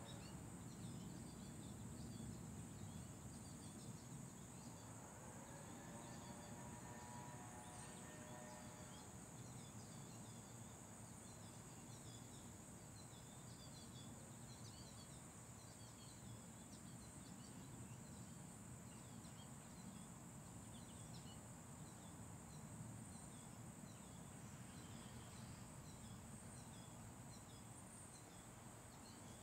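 Quiet outdoor neighbourhood ambience: a steady high insect drone with many short bird chirps, typical of goldfinches, over a low distant rumble. A faint engine-like hum rises and fades between about five and nine seconds in.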